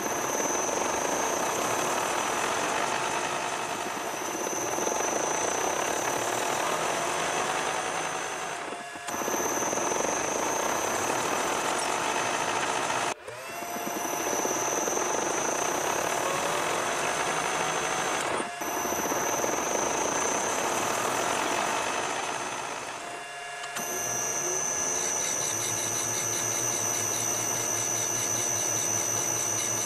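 Metal lathe running while a single-point tool cuts a 1 inch BSW thread in a steel stud, with a high whine over the machine noise and short breaks between stretches. For the last six seconds the sound changes to a steadier motor hum with a whine.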